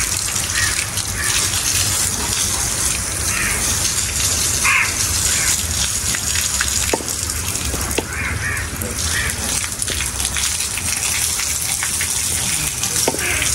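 Water from a garden hose gushing steadily and splashing onto a wet concrete floor.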